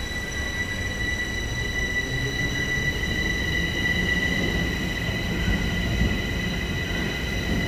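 Bombardier Movia 346 metro train running on track, with a steady high-pitched squeal made of several tones together over a low rumble of wheels on rail.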